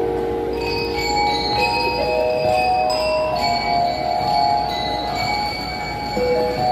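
Bell lyres (marching glockenspiels) of a drum and lyre band playing a melody of ringing metal-bar notes, each note held and changing in pitch from one to the next.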